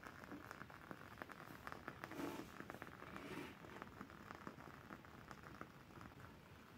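Wooden wick of a WoodWick Trilogy candle crackling faintly as it burns, a quick irregular run of tiny pops, with a brief rustle of handling about two seconds in.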